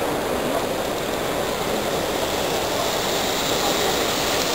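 Steady hubbub of a busy exhibition hall: a crowd talking at a distance, blurred into an even background noise, with no single sound standing out.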